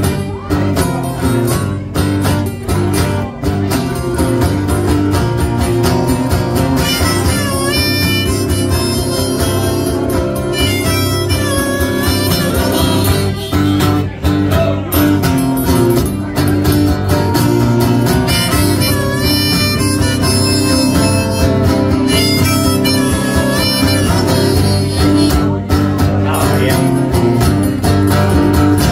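Harmonica solo played from a neck rack over strummed acoustic guitar, with notes that bend in pitch.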